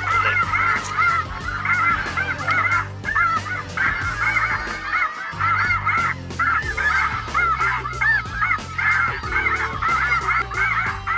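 A large flock of light geese calling, a dense chorus of overlapping nasal honks that runs on, with a brief lull about five seconds in. Low sustained notes sit underneath.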